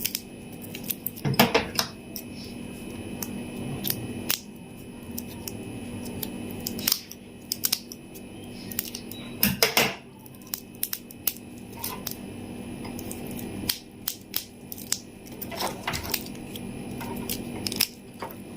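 Plastic candy wrappers and packaging being handled and unwrapped: irregular crinkles and sharp clicks, the loudest about one and a half, ten and sixteen seconds in, over a faint steady hum.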